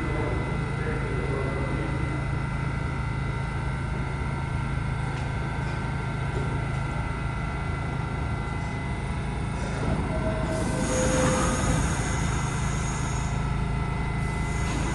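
R68-series New York City subway train pulling slowly into a station, running with a steady low hum and steady whining tones. About ten seconds in, a hiss with a high squeal comes up for about three seconds, then returns near the end.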